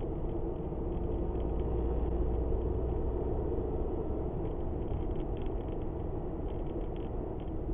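Car driving at steady speed, heard from inside the cabin through a dashcam microphone: a steady low rumble of engine and tyres on the road.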